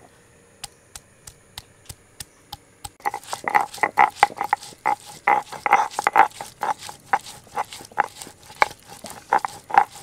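Ginger and green chillies being ground by hand on a stone slab with a stone roller (shil-nora). It starts with a run of sharp taps, about three a second, then from about three seconds in comes louder, rhythmic stone-on-stone grinding, about three strokes a second.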